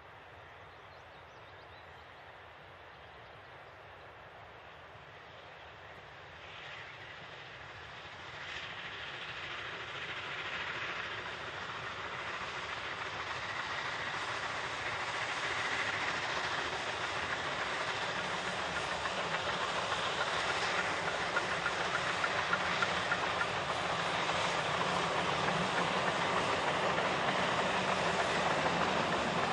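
Garratt articulated steam locomotive, NG/G16 No. 138, working a narrow-gauge passenger train, the sound of the engine and its carriages growing steadily louder as the train approaches.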